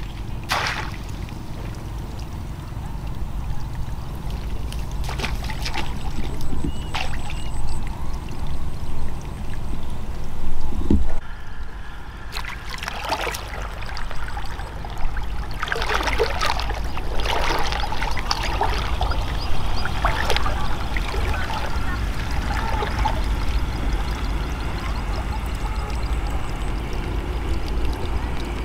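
Water trickling and splashing, with a few scattered knocks.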